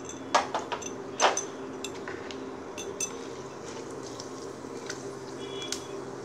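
A spatula clinking and scraping against a wok while whole spices are stirred and fried in hot mustard oil. Two sharp clinks come about half a second and a second and a quarter in, followed by lighter ticks over a steady low hum.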